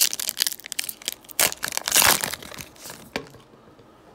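Plastic wrapper of a Panini Prizm trading card pack being torn open and crinkled: a dense crackling for about two and a half seconds, loudest around two seconds in, then a single sharp click about three seconds in.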